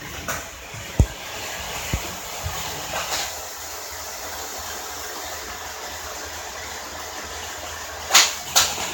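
Old-type battery-powered Plarail toy running on its plastic track: the small motor and gears whir steadily. A sharp low knock comes about a second in, a softer one near two seconds, and two sharp clicks near the end.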